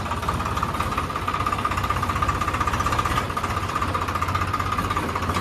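Small diesel tractor engine running with a fast, steady clatter, heard up close from the driver's seat.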